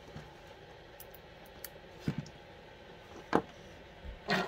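A few small clicks and knocks as a metal push-button switch and its wires are handled and laid on a wooden board. The loudest is one sharp click about three seconds in, followed by a short scuffing knock near the end.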